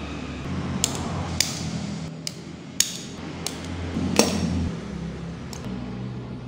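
Sharp clicks and taps of small hard plastic parts being handled and fitted together, about seven separate knocks, the loudest about four seconds in, over a steady low hum.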